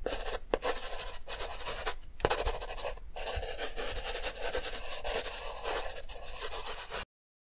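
Pen scratching across paper in continuous drawing strokes, broken by a few brief pauses as it lifts, then cutting off suddenly near the end.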